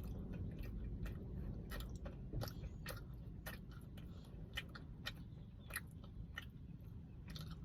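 A person chewing a cookie close to the microphone: irregular soft clicks and crunches of the mouth, over a low steady rumble.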